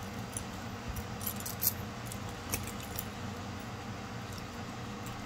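Costume jewelry being handled: a gold-tone metal chain necklace with flower pendants clinking lightly, a few scattered clicks mostly in the first three seconds, over a faint low hum.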